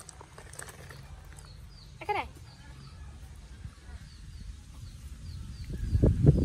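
Faint short high bird chirps repeating about twice a second, with a single short falling squeal about two seconds in. Near the end, low knocks and rustling as a baby macaque is handled and lifted.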